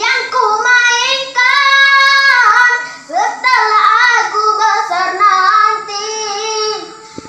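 Two young boys singing a dangdut-style song, holding long notes with wavering pitch.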